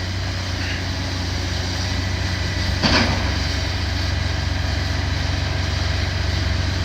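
Heavy demolition machine's engine running steadily, with one sharp knock about three seconds in.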